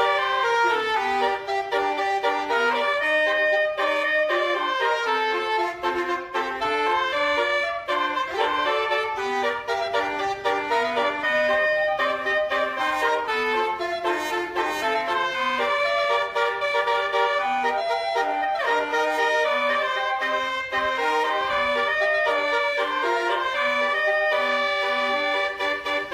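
Basuri musical horn playing a melody in short stepped notes, one after another without a break.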